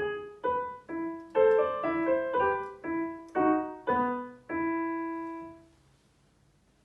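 Piano playing the closing bars of a simple children's piece: separate notes about two a second, fuller chords from about a second and a half in, and a final held note that dies away near the end, finishing the piece.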